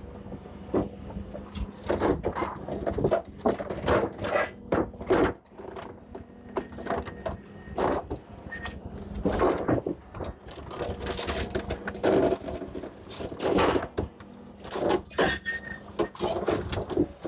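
Demolition excavator breaking up a building: irregular crunching and clattering of concrete and rubble over the steady hum of its engine.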